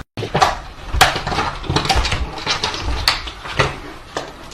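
Irregular clattering and knocking of hard objects, several sharp knocks a second or so apart.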